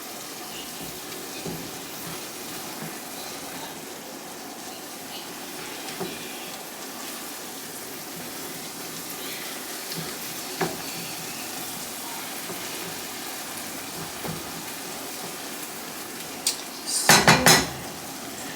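Hamburger meat sizzling steadily in a frying pan, with a few scattered clinks of a utensil. A burst of loud clattering from the pan and utensil comes near the end.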